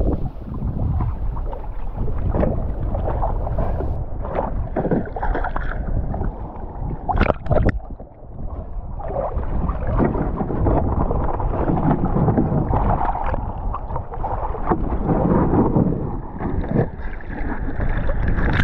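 Sea water sloshing and splashing around an action camera at the surface beside a plastic kayak, with wind on the microphone and a few sharp knocks.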